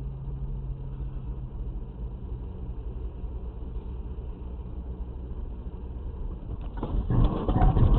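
Car cabin noise picked up by a dashcam microphone: a steady low engine and road hum. About seven seconds in it grows louder and rougher.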